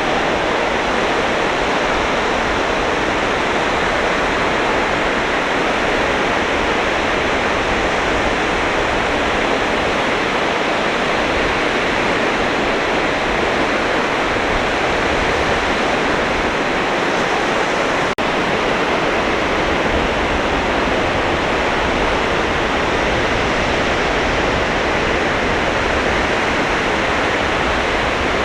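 Sea surf breaking on a beach: a steady, unbroken rush of waves with no lull, and a single brief click about two-thirds of the way through.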